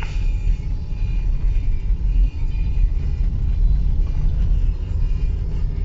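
A Subaru driving on an unpaved road: a steady low tyre and road rumble.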